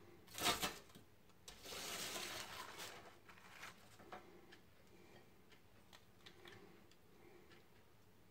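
A plastic spoon scooping diced potato and sausage hash off a parchment-lined baking sheet. There is a sharp knock about half a second in, then a couple of seconds of scraping across the baking paper, then a few light clicks and taps.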